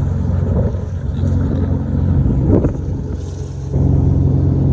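Motorboat engine running steadily, its low drone easing for a moment about three seconds in and then coming back louder.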